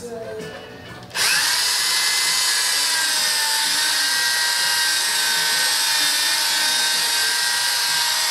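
Electric drill with a foam polishing pad buffing polish into a plastic car headlight lens. The motor starts suddenly about a second in and then runs as a steady high-pitched whine.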